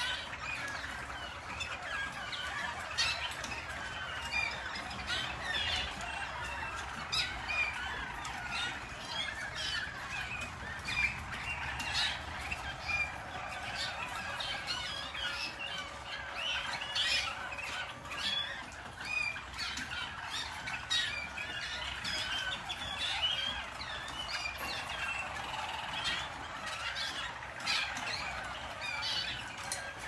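Harzer Roller canaries singing together in a continuous, dense chorus of rolls and trills, with many songs overlapping.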